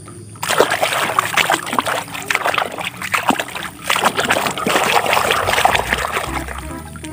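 Water splashing and sloshing in a plastic tub as a hand vigorously scrubs a small toy vehicle, starting about half a second in.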